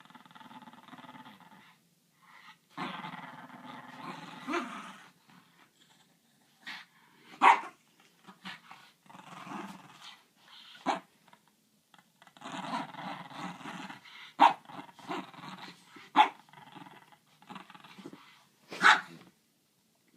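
Dog growling in long rough stretches, broken by several short, sharp barks.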